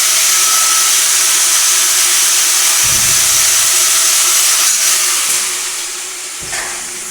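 Angle grinder cutting metal: a steady motor whine under a harsh, loud hiss, easing off over the last couple of seconds.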